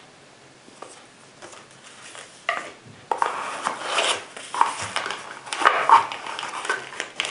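Packaging being handled: a few light knocks about two and a half seconds in, then irregular rustling as a cardboard box and a sheet of foam packing wrap are moved about.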